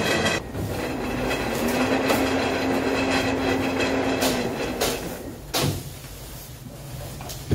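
A power tool's motor, most likely the wall grinder used to flatten the walls, whines and cuts off abruptly about half a second in. It is followed by a broad rumbling noise with a low steady hum for a few seconds, and a couple of sharp knocks near the end.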